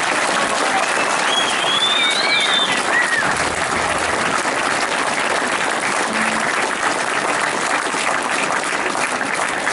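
An audience applauding steadily, with a high whoop rising over the clapping about two seconds in.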